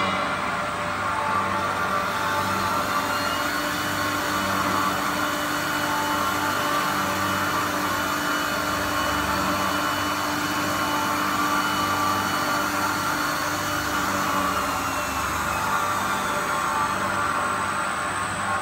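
RX-30L lab vacuum homogenizer mixer running, its motors and pump giving a steady mechanical drone.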